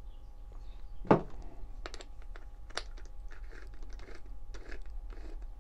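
Handling sounds of a steel four-jaw lathe chuck and its chuck key: scattered light metal clicks and taps with some rustling of cardboard packaging, the sharpest knock about a second in.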